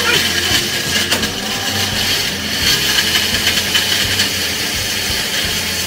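Electric countertop blender running steadily, blending an avocado shake.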